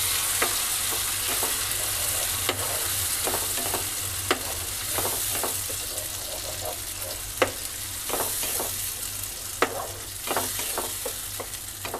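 Thick onion, tomato and garlic gravy sizzling in hot ghee and oil in a non-stick frying pan as it is stirred with a spatula, with irregular taps and scrapes of the spatula against the pan over a steady sizzle.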